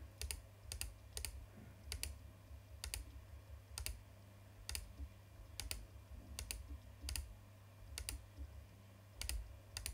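Computer mouse button clicking at an uneven pace of about one to two clicks a second, each a quick double tick of press and release, as segments are picked one by one. A low steady hum runs underneath.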